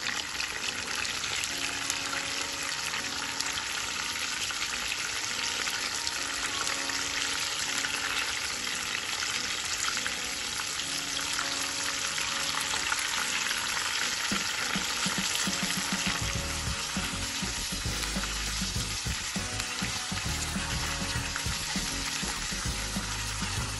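Rohu fish pieces shallow-frying in hot mustard oil, with a steady sizzle of bubbling oil as the second side crisps after being turned. A low rumble joins in under the sizzle for the last several seconds.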